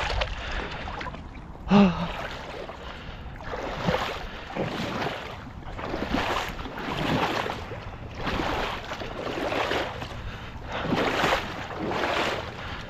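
Water splashing and sloshing in a steady rhythm, about once a second, as someone moves out through a pond. A short, loud vocal grunt comes about two seconds in.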